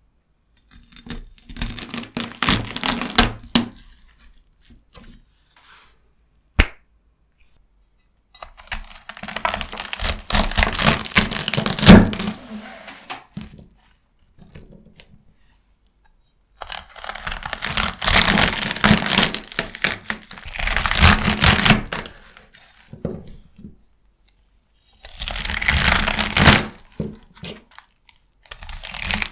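Fresh celery stalks being cut with a knife: crisp crunching and snapping in bursts of a few seconds, with quiet pauses between them and a single sharp snap about six and a half seconds in.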